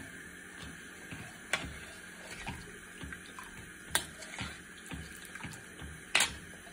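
Herbal soup boiling in a pot on the stove: irregular bubbling and popping, with three sharper clicks, the loudest near the end.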